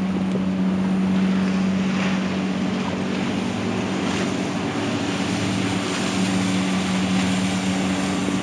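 Boat engines droning steadily across the water in a low, even hum, with wind noise on the microphone.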